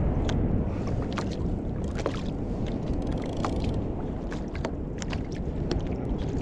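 Small waves lapping and slapping against a sit-on-top kayak's hull, with many short sharp splashes, over a steady low rumble of wind on the microphone.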